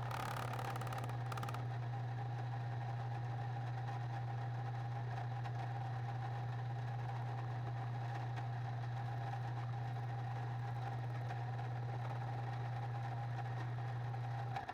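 A machine running steadily, a constant low hum with a faint higher whine over it.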